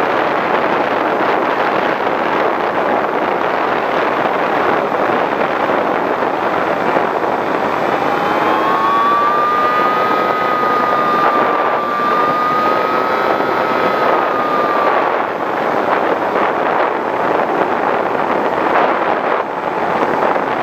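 Skywalker V6 FPV plane in flight, heard from its onboard camera: a steady rush of airflow and propeller noise. About eight seconds in, a whine from the electric motor rises slightly and holds for about six seconds before fading.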